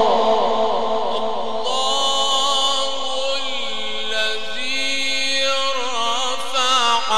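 A man reciting the Quran in drawn-out melodic tajweed style through a microphone, holding long notes whose pitch bends and wavers.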